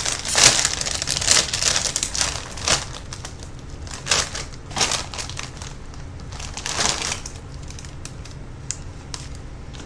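Plastic-foil Cheetos snack bag being pulled open and crinkled by hand. The crackling is densest in the first second or so, then comes in separate short crinkles as a hand reaches into the bag.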